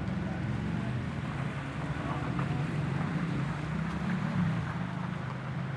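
Vehicle engines running at low speed with water sloshing and splashing as a car's tyres move through a flooded street.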